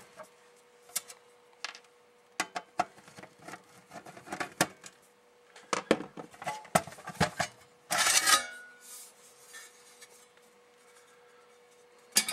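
Hands taking the steel sheet-metal cover off a small bench power supply: scattered metal clicks and clinks, with a longer scraping rattle about eight seconds in as the cover slides off.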